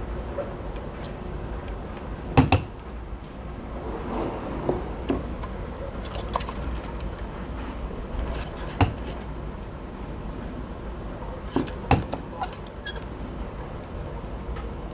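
Small hard clicks and taps of tools and small parts being handled on a workbench, scattered irregularly, the sharpest a few seconds in and near the middle and end, over a steady low hum.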